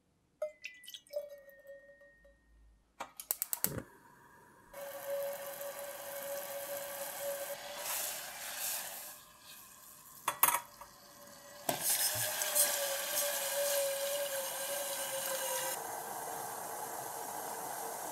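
Liquid poured into a stainless-steel saucepan in two long pours, with a few sharp clinks before and between them. Near the end the balsamic and red wine sauce is boiling steadily in the pan.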